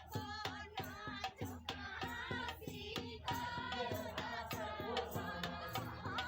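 Indian folk song: singing over a fast, steady percussion beat.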